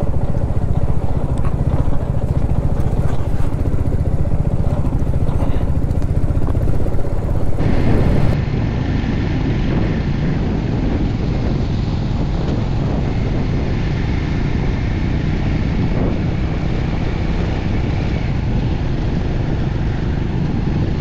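Royal Enfield Classic 350's single-cylinder engine running as the motorcycle rides a rough gravel track. About eight seconds in, it cuts to a second motorcycle's onboard engine and road sound, duller in the highs.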